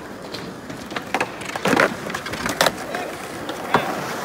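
Skateboard wheels rolling on a hard court, broken by a few sharp board clacks and slams on the ground and wooden obstacles, the loudest near the middle. Voices of skaters chatter in the background.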